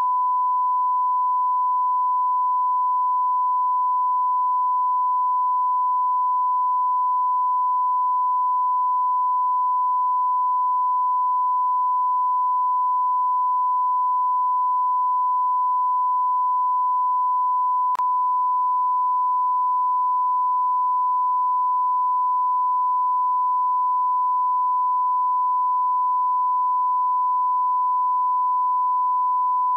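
Steady 1 kHz sine-wave test tone: one pure, unbroken pitch at constant level, with a faint click partway through.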